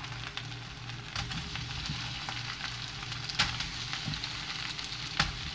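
Salted egg yolk sauce sizzling and bubbling in a frying pan as raw shrimps are laid into it, with a few sharp crackles, the loudest just past halfway and near the end.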